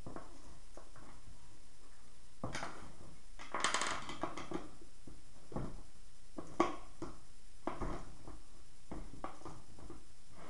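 Scattered clicks, clinks and knocks of handling a skateboard and a skate tool, with a short run of metallic clicking a few seconds in and one sharp knock past the middle.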